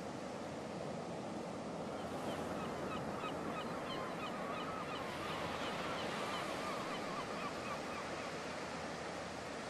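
Steady wash of water and wind, with a flock of birds calling in quick short notes from about two seconds in until near the end.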